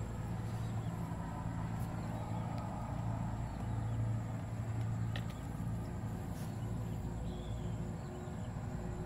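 Outdoor ambience: wind rumbling on the microphone under a steady low hum, with a few faint ticks and faint bird-like chirps.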